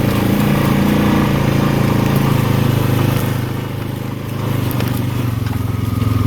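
ATV (four-wheeler) engine running steadily. It eases off for about a second roughly three and a half seconds in, then picks back up.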